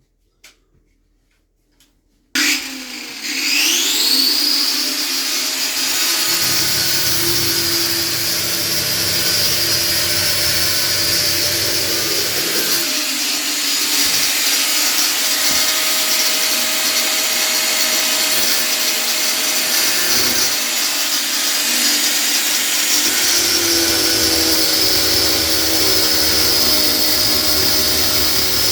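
Power tool starting about two seconds in with a rising whine, then running steadily, used on a mixer tap that will not come off.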